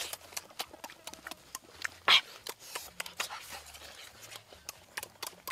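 Crisp bites and chewing of raw guava fruit: a run of short sharp crunches, the loudest about two seconds in.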